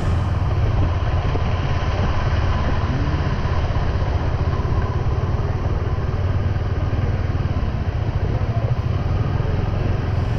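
Motorcycle engine running steadily, a constant low rumble with a rushing noise over it.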